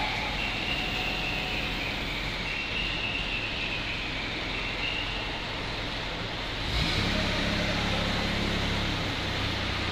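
Diesel engine of an ACE hydra pick-and-carry crane running steadily, with a faint, broken high whine in the first few seconds. About seven seconds in, the engine note steps up louder and takes on a steady low hum.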